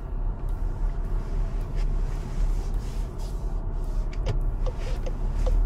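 Volkswagen car rolling slowly, heard from inside the cabin: a steady low rumble of engine and tyres, with a few faint ticks in the second half.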